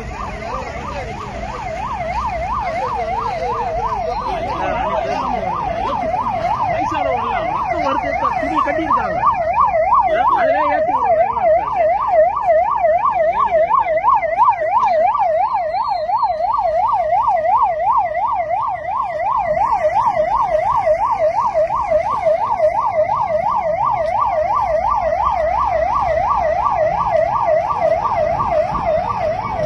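An emergency vehicle's siren in a rapid yelp, its pitch swooping up and down a few times a second without a break. It grows louder over the first ten seconds or so and then holds steady.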